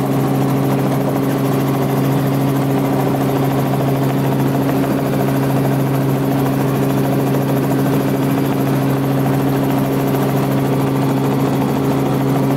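Helicopter in level flight, heard from aboard: a steady, unchanging drone of engine and rotors with a constant pitch.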